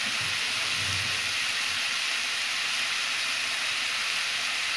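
Marinated chicken tikka drumsticks shallow-frying in about a tablespoon of oil in a nonstick frying pan on medium heat, sizzling with a steady hiss.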